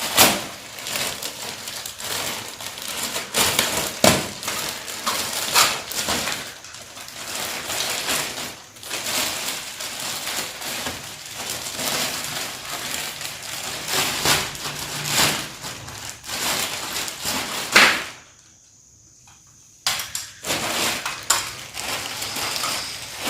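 Unpacking a metal trolley stand: packaging rustling and crinkling, with irregular knocks and clinks of the metal parts being handled. The sound drops out for about two seconds near the end.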